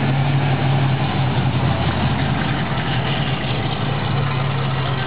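Plymouth Barracuda's V8 running at low revs with a steady, deep note as the car rolls slowly past.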